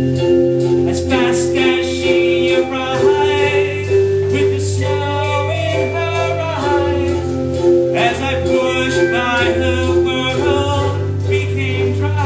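Live band music: a singer over held chords, a steady bass line and drum hits.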